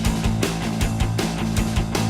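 Background rock music with electric guitar, a bass line and a steady drum beat.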